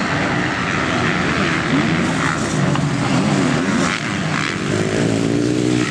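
Motocross bikes racing on the track, their engines revving up and down again and again as the riders work through the course.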